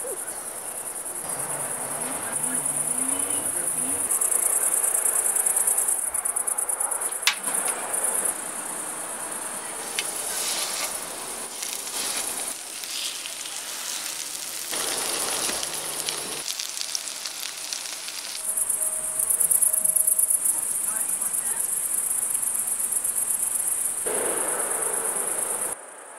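Crickets chirping steadily in a high, pulsing trill, the main sound throughout. Partway through, patties sizzle as they fry in oil in a pan.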